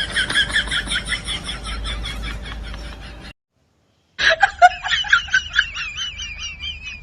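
Laughing sound effect: rapid high-pitched giggling, about five laughs a second. It cuts off suddenly after about three seconds, and after a second of silence a second giggling clip with wavering pitch starts.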